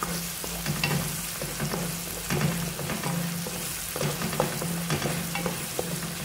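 Blended chilli spice paste sizzling in hot oil in a nonstick wok, with a wooden spatula scraping and tapping the pan as it is stirred. A steady low hum sits underneath.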